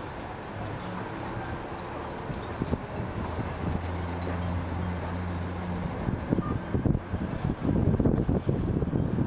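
Boat engine running with a steady low hum, with rough wind buffeting on the microphone growing louder in the last couple of seconds.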